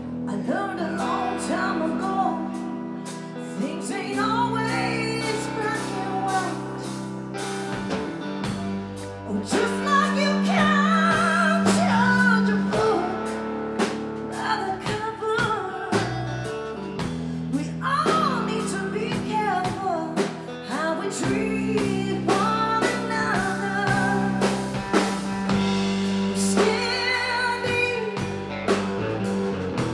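Live blues band: a woman sings with wavering, bending notes over electric guitar and a drum kit, amplified through a stage sound system.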